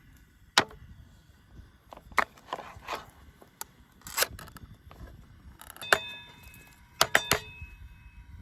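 Metal cookware and utensils being handled: a series of sharp clinks and knocks, and in the last few seconds one struck metal piece rings briefly with a bell-like tone.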